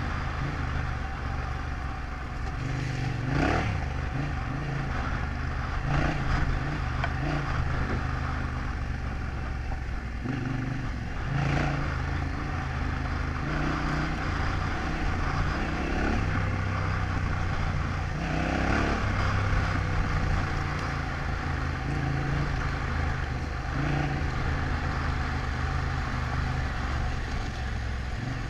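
Yamaha Ténéré 700's parallel-twin engine running at low speed on a rough dirt track, the throttle opening and closing a little, with a few brief knocks and rattles as the bike goes over bumps.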